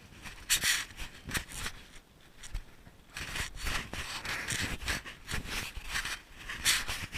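Handling noise from a GoPro Hero 3 in its housing: irregular scraping and rubbing as it is moved against skin and the boat, in short bursts that grow denser about three seconds in.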